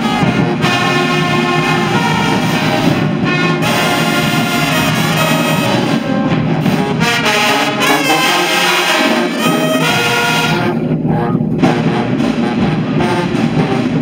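High school marching band's brass section playing loudly: trumpets and mellophones with sousaphones underneath.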